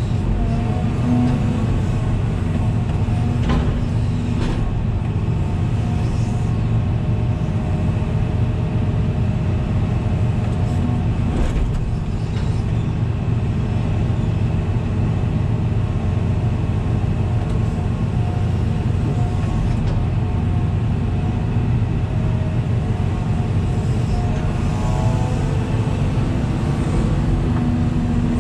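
Hitachi 350 long-reach excavator's diesel engine and hydraulics running steadily under load as the boom and grading bucket work, heard from inside the cab, with a few faint knocks.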